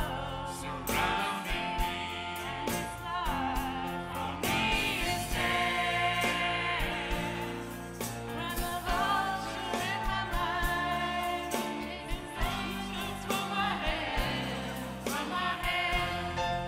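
Live band playing a song with several singers, women's and a man's voices together, over bass guitar and a steady beat.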